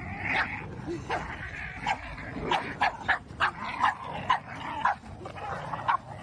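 A dog barking in a quick series of short, high-pitched barks, about two a second, with whining between them.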